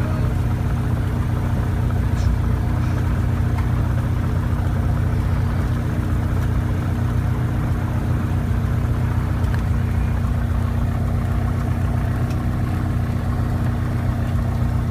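Small propeller aeroplane's piston engine and propeller running steadily, heard from inside the cockpit, with a constant low drone and two steady tones.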